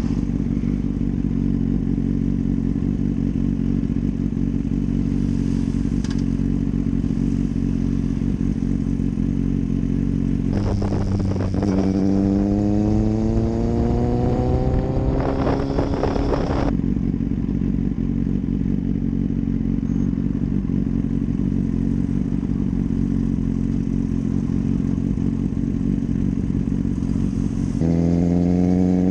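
Kawasaki Z800's inline-four engine running at a steady cruise, then accelerating in a long rising pull from about eleven seconds in. It drops back to a steady note about halfway through and steps up in pitch and loudness again near the end.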